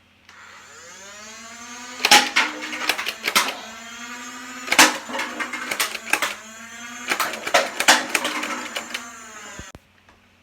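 Nerf Elite 2.0 Motoblitz's motor-driven flywheels spinning up with a rising whine. Three rapid strings of loud sharp clacks follow as darts are fired, the whine sagging and recovering around each string, before the motors stop suddenly near the end.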